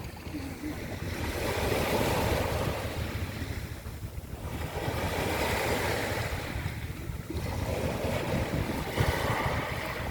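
Sea waves washing up a pebble beach and drawing back, the backwash dragging and rattling the pebbles. It surges three times with short lulls between.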